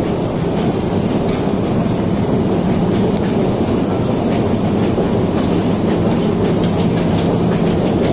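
Tram running along its track, heard from inside the car: a steady rumble of wheels on rails, with a low steady hum joining about five seconds in.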